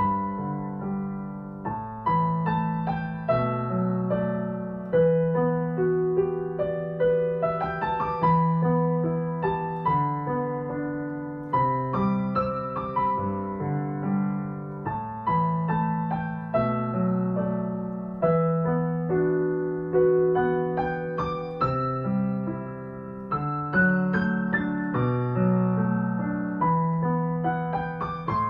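Solo upright piano playing a slow, gentle piece: a melody in the upper notes over steady, sustained low notes, each note struck and then fading.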